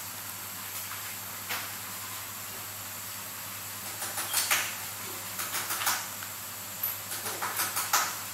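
Small sharp metallic clicks and light scrapes of a steel watchmaker's tool on the parts of a Seiko 7S26B automatic movement during assembly, one about a second and a half in and then in quick clusters through the second half, over a steady faint hiss.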